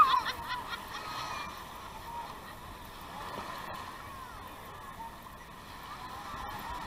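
Beach surf: small waves washing in at the shoreline, with a crowd of distant voices of people in the water. A loud high-pitched shout ends right at the start.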